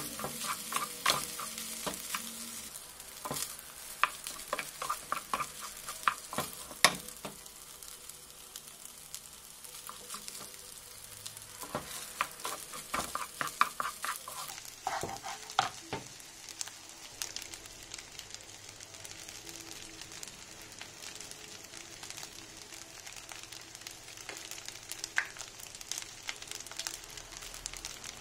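Fried rice sizzling in a nonstick pan while a wooden spatula stirs and tosses it, with frequent clicks and scrapes of the spatula against the pan through the first half or so. After that it is mostly a steady sizzle with only an occasional tap.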